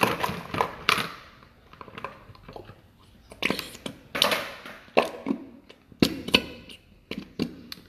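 Thick body lotion squeezed out of a plastic bottle into a plastic bowl: a series of short squelching squeezes and splats, with a couple of sharp clicks from the bottle.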